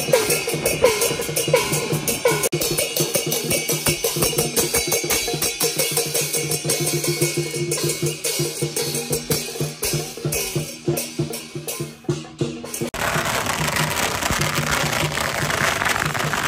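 Chinese temple-procession percussion: drum, gong and cymbals beating a steady rhythm, the gong's ringing tones sounding under each stroke. About thirteen seconds in it turns into a dense wash of clashing cymbals.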